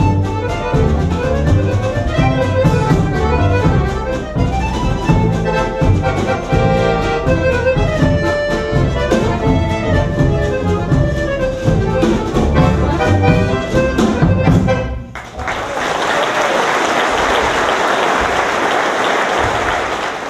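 Accordion, double bass and drums playing a musette waltz, which ends about fifteen seconds in. The audience then applauds.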